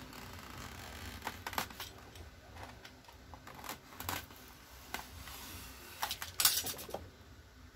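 Knife blade cutting LCD polarizer film on a foam pad: a few short scrapes and clicks, the loudest scrape about six and a half seconds in. The blade is somewhat dull.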